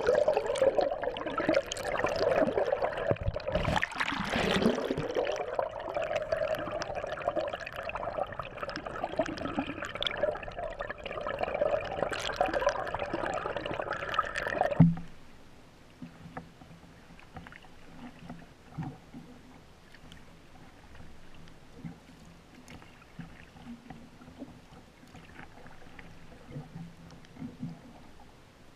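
Muffled rushing and gurgling of lake water around a canoe hull, heard through a camera held underwater. It cuts off suddenly about halfway through, leaving only faint low sloshing.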